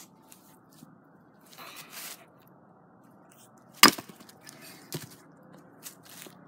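A single sharp crack as an axe strikes a log a little under four seconds in, followed about a second later by a lighter knock. Before the blow there is a brief patch of rustling in dry leaves.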